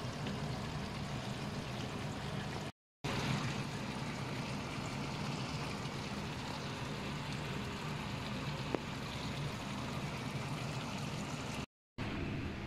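Steady hiss with a low hum underneath, the background noise of a kitchen; it drops out completely twice for a moment, and there is a faint tick about nine seconds in.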